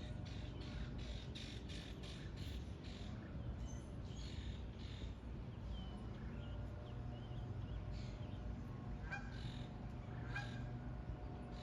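Canada geese calling: a quick run of short calls in the first few seconds, then two louder honks about nine and ten and a half seconds in, over steady low background noise.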